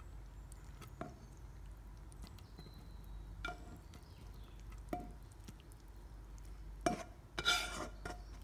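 A nonstick pan and utensil clink and scrape against a ceramic plate as stir-fried shrimp and mushrooms are slid onto it. There are scattered light clinks with a short ring, then a brief burst of scraping and clattering near the end.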